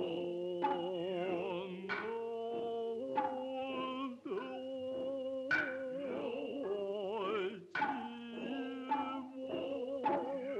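Noh music: chanting in long, wavering held tones, cut by a sharp hand-drum strike every second or two.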